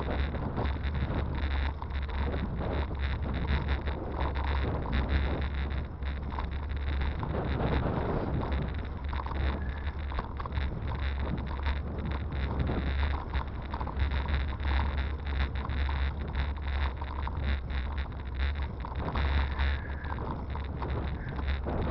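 Steady low rumble of wind buffeting an action camera's microphone, with a faint continuous whine near 4 kHz.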